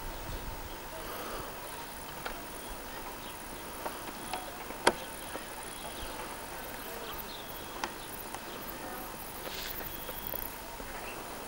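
Outdoor ambience of insects chirping steadily at a high pitch, broken by a few short sharp clicks, the loudest about five seconds in.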